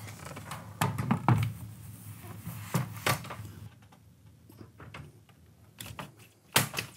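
Aluminum sliding glass door panel knocking and thunking as it is seated in the frame head and its bottom swung onto the track: a few thunks about a second in and again around three seconds, lighter clicks after, and a sharp knock near the end.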